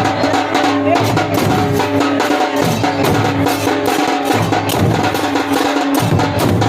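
Drums played in a fast, dense rhythm, with a low steady tone underneath that drops out for a second or two at times.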